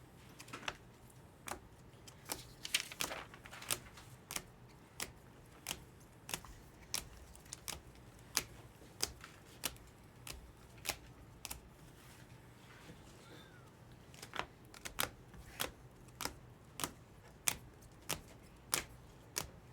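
Trading cards being handled one by one, each giving a sharp tap or snap, roughly one to two a second, with a pause of a couple of seconds partway through.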